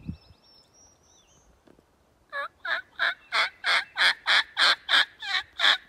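A hunter's turkey call yelping a run of about eleven notes, about three a second, growing louder, sent out to see whether a gobbler will answer.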